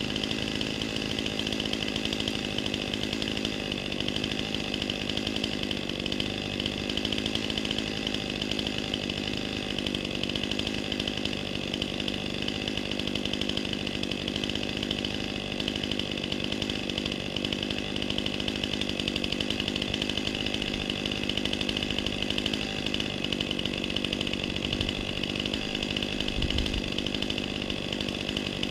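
Chainsaw engine running steadily at an even pitch, with no revving up or down.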